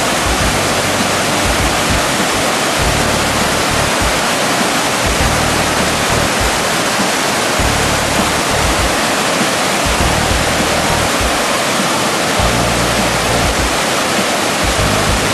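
Waterfall rushing over mossy rock ledges in several cascades, a loud, steady, unbroken hiss of falling water.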